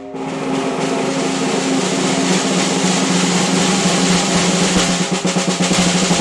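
Solid-wood stave snare drum played in a continuous roll, the snare wires buzzing throughout.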